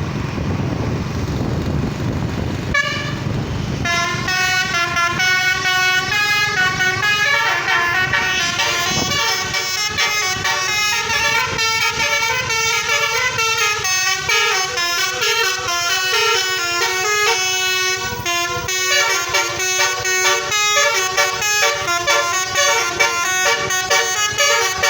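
Road and engine rumble for the first few seconds. From about four seconds in, a multi-tone Basuri telolet horn plays a fast stepping melody of many short notes that carries on to the end.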